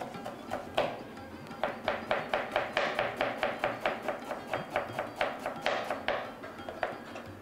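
Kitchen knife chopping green chillies and onion on a plastic cutting board: a single stroke about a second in, then a quick run of about five strokes a second that thins out near the end. Soft background music underneath.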